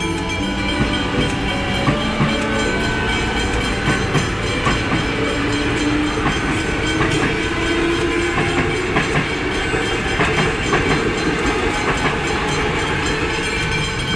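Melbourne Metro electric suburban trains passing over a level crossing, wheels clattering over the rail joints and crossing, while the crossing's warning bells ring steadily. A motor whine rises in pitch in the middle as a train accelerates.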